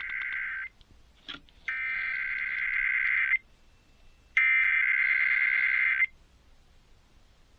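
Emergency Alert System SAME header data bursts, the digital tone code that opens an EAS test, sent three times with about a second's gap between them. The first burst is already under way and stops just under a second in; the last stops about six seconds in.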